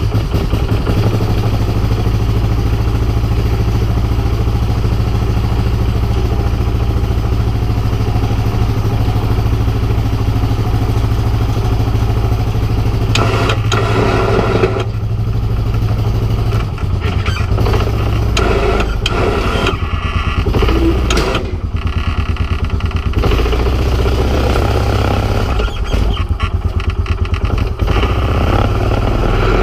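Honda Foreman 450 ATV's single-cylinder engine running hard as the ATV pushes a 60-inch snow plow blade through deep snow, a big one-cylinder grunt. The note is steady at first, then rises and falls with the throttle from about halfway through, with some clatter.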